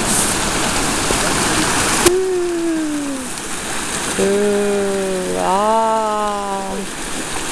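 A steady rushing noise, cut off by a click about two seconds in. Then a person's voice in long drawn-out notes: one that falls in pitch, and later a held note that steps up partway through.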